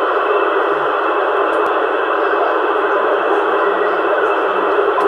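CRT 7900 CB transceiver's loudspeaker giving a steady hiss of FM receiver noise on the 27 MHz channel, limited to the narrow radio audio band.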